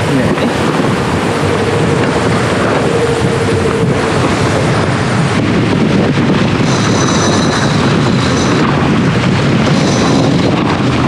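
Wind buffeting the microphone over the steady rush of water along the hull of a sailboat under way, a loud, even noise with no breaks.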